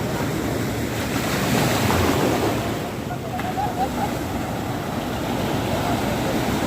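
Ocean surf washing in steadily, with a louder surge about two seconds in, and wind on the microphone.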